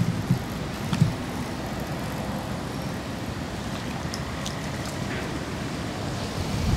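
Wind rushing over the microphone, a steady noise with low buffeting gusts near the start and a single sharp click about a second in.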